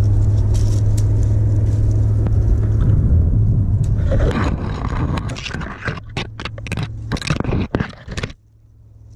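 Tree branches scraping, snapping and knocking against the boat and body as they are pulled down by hand to free a lure snagged in the tree, a dense run of sharp scrapes from about four seconds in. A steady low hum runs beneath and cuts off suddenly about eight seconds in.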